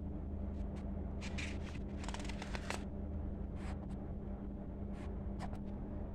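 Paper rustling in short bursts as a notebook sheet is handled and turned to a blank page, over a steady low electrical hum.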